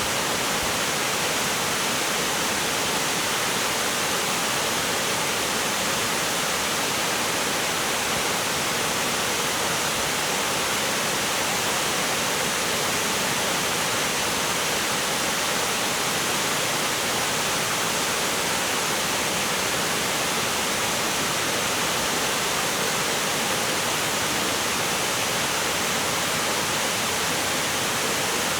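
Shirahige Falls waterfall pouring: a steady, unbroken rush of falling water.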